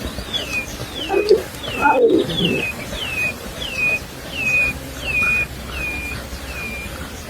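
A bird calling over and over, a steady series of short whistled notes that each slide down in pitch, about three notes every two seconds, stopping near the end. A couple of short, low animal calls sound about one and two seconds in.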